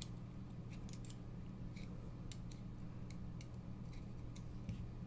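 About a dozen faint, irregular metallic clicks and taps as a hex driver and small parts are worked against a titanium knife handle scale, over a steady low hum.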